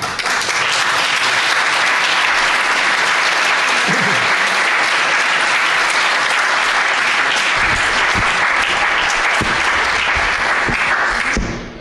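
Audience applauding steadily, dying away just before the end.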